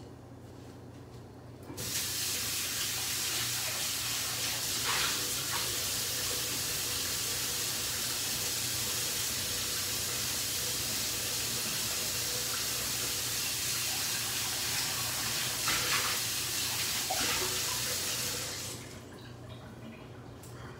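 Kitchen sink tap running as a non-stick frying pan is rinsed under the stream. The water comes on about two seconds in and shuts off a couple of seconds before the end, its sound changing briefly twice as the pan moves under it.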